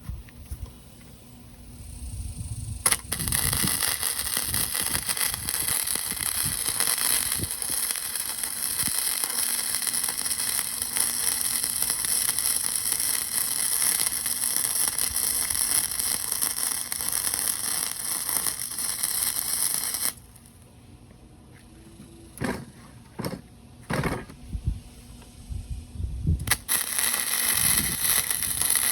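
Electric welding arc crackling and hissing in a steady run that strikes with a sharp click about three seconds in and cuts off suddenly around twenty seconds in. A few knocks follow, then the arc strikes again near the end.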